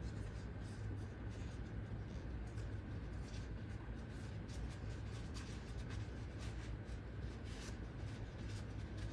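Paper towel rubbing and scrubbing carbon fouling off a shotgun part, a faint run of scratchy wiping strokes over a steady low hum.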